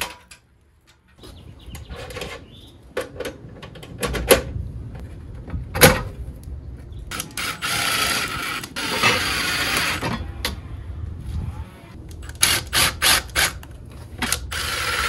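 A cordless drill runs in a few spells of a second or more, driving screws to mount metal electrical disconnect boxes. Sharp clicks and knocks of metal parts being handled come between the runs.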